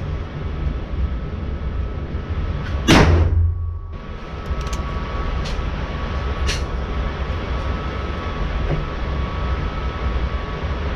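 A single gunshot from a Mitchell Arms single-action .45 Colt revolver firing a Hornady FTX round, about three seconds in, over a steady background hum. A few faint clicks follow.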